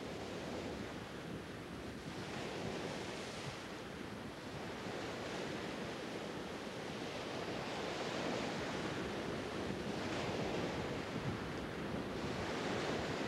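Sea water rushing and surging around a surfaced submarine's bow wave, a steady wash of noise that swells and falls every couple of seconds.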